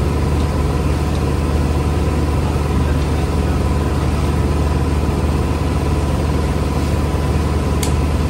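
Motorboat engine running steadily at speed, a constant low drone under the rush of water from the wake.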